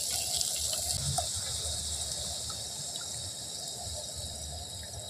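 Water poured from a plastic bottle into a pan of fried onion-tomato masala, a steady trickle into the sauce that slowly gets quieter; this is water added to make the curry gravy (jhol).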